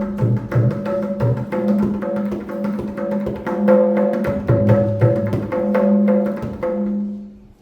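Instrumental music with quick drum strokes over steady held notes, fading out about seven seconds in.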